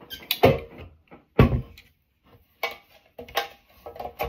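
A small toy locker being handled and its door swung open: a series of sharp knocks and clatters, the loudest about a second and a half in.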